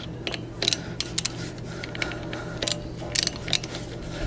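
Hand ratchet with a Torx T27 bit clicking in short bursts of sharp clicks as it backs out the bolts holding the locking hub on a truck's front wheel hub.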